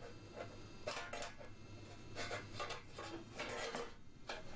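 Screwdriver levering against thin sheet-steel panels, giving faint, irregular metallic scrapes and clinks as a stubborn strip is forced outward.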